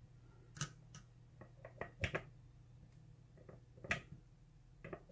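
Scattered small clicks and ticks of a lock pick and tension wrench working the pins of a five-pin tumbler lock, with a tight group of clicks about two seconds in and single clicks near four and five seconds.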